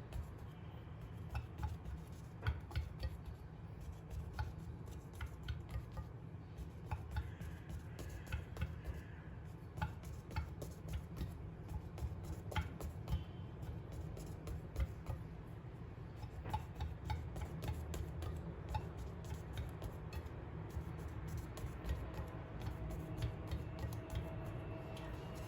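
Irregular light clicks and taps of kitchen utensils at work, over a low steady hum.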